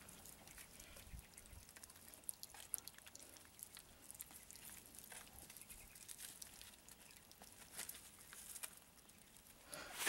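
Faint small clicks and rustles of Maltipoo puppies eating soft food off a paper plate and moving about on wood shavings.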